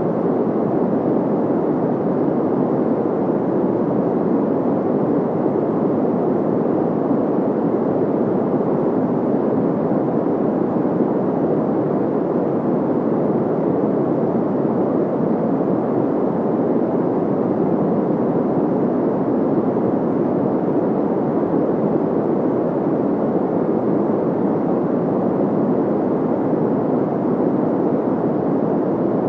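Steady synthetic white-noise sound effect: an even, unbroken rush, low and dull rather than hissy, with no change in level.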